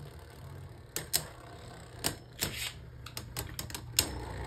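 Plastic Beyblade spinning tops battling in a stadium: irregular sharp clacks as they collide, over a low steady hum.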